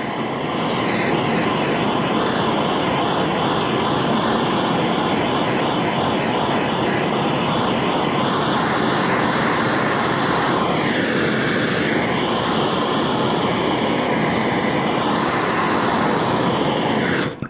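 MAP-gas hand torch burning with a steady, loud rushing hiss as it heats the steel trunk lid for body solder, shut off at the very end.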